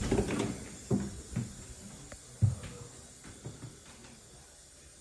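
A few short knocks and clunks in a small room, the loudest right at the start and another about two and a half seconds in, then a low hush.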